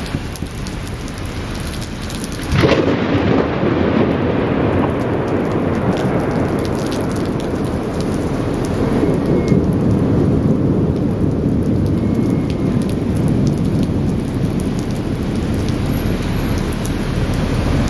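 Steady rain, then a thunderclap about two and a half seconds in: a sharp crack followed by a long low rumble echoing off the surrounding high-rise buildings.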